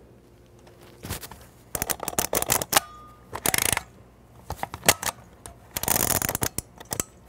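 Kodak Instamatic camera loaded with 35mm film being worked by hand: a run of sharp shutter and advance-knob clicks, with two short rasps, about three seconds in and about six seconds in, of the film scraping across the pressure plate back into its canister. The scraping is the sign that the film is advancing properly.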